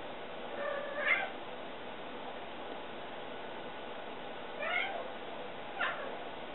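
Domestic cat meowing twice, about a second in and again near five seconds in, with a brief third sound shortly before the end, over a faint steady hiss.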